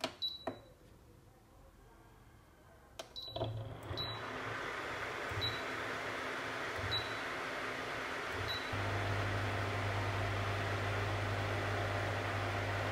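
Induction cooker converted into an induction heater being switched on: its control panel gives a series of short single beeps as the buttons are pressed, its cooling fan starts up about three seconds in, and about nine seconds in a steady low electrical hum from the heater sets in and holds.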